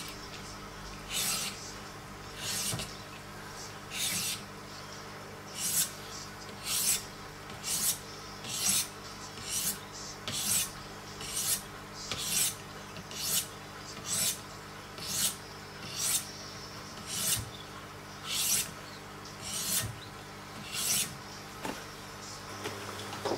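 Wicked Edge 400-grit diamond stones drawn across a clamped knife blade's edge: about twenty short rasping strokes, roughly one a second. The stroke is followed near the end by one sharp knock.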